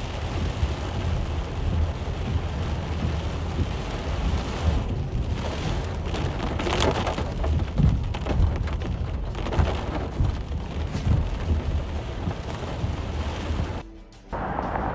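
Heavy rain and wind noise heard from a car driving in a storm, a steady rush over a deep, uneven rumble. The sound drops out briefly near the end.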